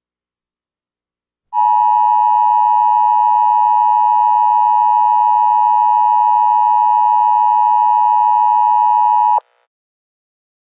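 Emergency Alert System attention signal: a loud, steady two-tone alarm that starts about a second and a half in, holds for about eight seconds, and cuts off suddenly.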